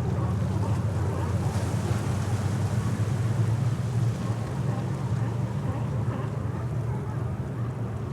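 Waterfront harbour ambience: a steady low rumble under a wash of noise.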